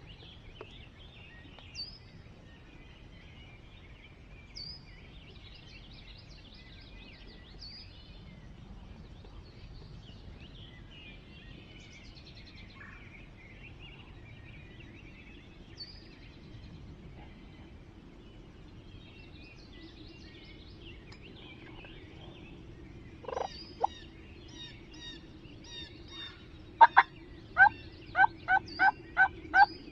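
Wild turkey calling, over faint songbird chirps. A short call comes about 23 s in, then a run of about eight loud, evenly spaced notes near the end.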